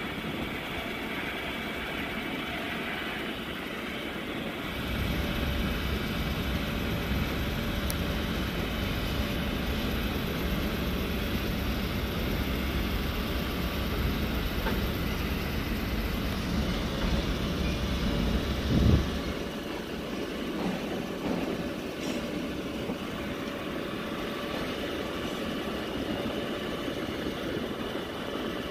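A 6.6 L Duramax diesel running, driving the PTO hydraulics while the Altec aerial boom is lowered. It gets louder about five seconds in, and drops back after a clunk about two-thirds of the way through.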